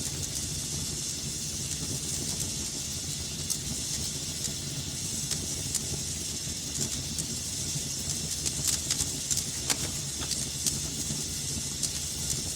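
Wood fire burning in a fireplace: a steady hiss and low rumble with frequent sharp crackles and pops, coming thicker about two-thirds of the way in.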